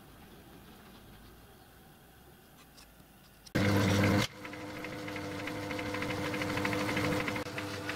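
Metal-turning lathe with a four-jaw chuck starting up about halfway through with a brief loud burst, then running with a steady hum and a fast rattle that grows slowly louder. Before it, only faint steady workshop noise.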